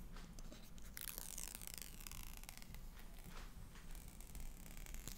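Faint, drawn-out peeling of the paper-card protective wrap coming off a new iPhone 12 Pro Max's screen, a soft tearing rasp that starts about a second in.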